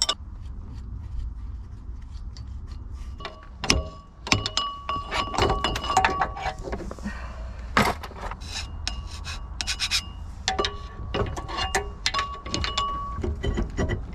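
Metal parts of a boat engine being handled as the drive coupler and then the flywheel are pulled off: repeated clinks and knocks with short ringing metal tones. Two sharp knocks stand out, about 4 and 8 seconds in.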